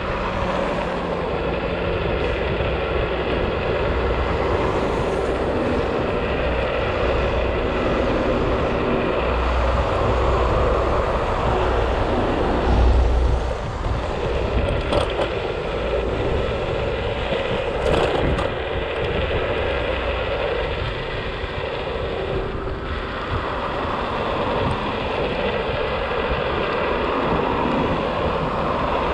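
Scooter's motor running steadily on the move, with wind noise on the microphone.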